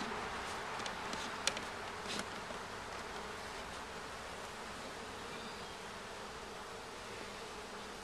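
Honey bees buzzing in a steady hum around an opened wooden beehive, with a few light clicks in the first couple of seconds.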